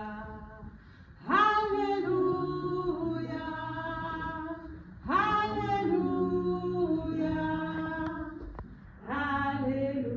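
Voices singing a slow hymn unaccompanied, in three long held phrases, each starting loudly and fading before a short pause.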